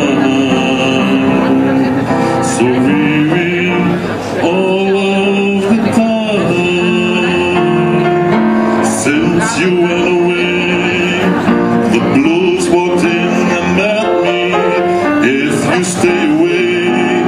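Live music: a male voice singing a slow jazz ballad over guitar accompaniment.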